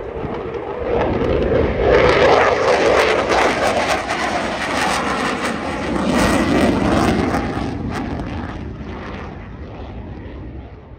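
F-16 fighter jet flying past in afterburner: a loud jet roar with a crackling edge. It swells about two seconds in, stays loud until about eight seconds in, then fades as the jet moves away.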